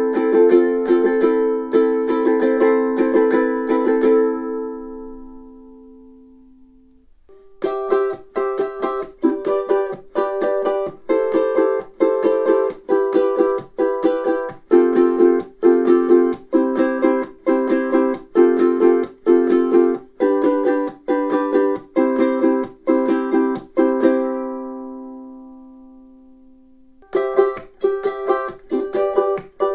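All-solid koa concert ukulele strummed in chords, unaccompanied. Three strummed passages: the first ends about four seconds in on a chord left to ring and fade over about three seconds; the second is a steady run of chords that ends on another ringing, fading chord; the third starts near the end.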